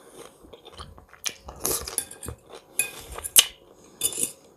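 Close-up eating sounds: a metal fork clicking and scraping against a ceramic salad dish, with crunching and chewing of fresh cucumber salad. There are several sharp clicks and crunches, a few each second or so.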